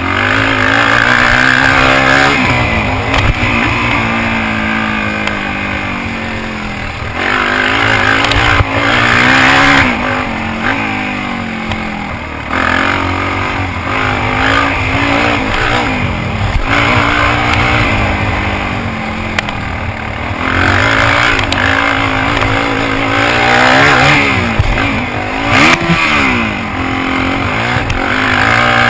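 Suzuki DR-Z400's single-cylinder four-stroke engine revving up and down over and over as the throttle is opened and shut through turns and jumps, under a rushing noise, with a few sharp knocks.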